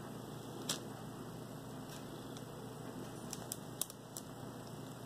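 Quiet steady room hum with a handful of faint, short clicks and ticks, one about a second in and a small cluster a little past the middle.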